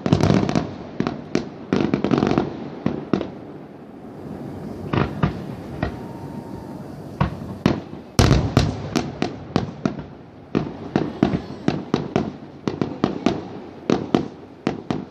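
Fireworks and firecrackers going off: a rapid run of bangs at first, then scattered pops, a loud deep boom about eight seconds in, and dense volleys of sharp cracks near the end.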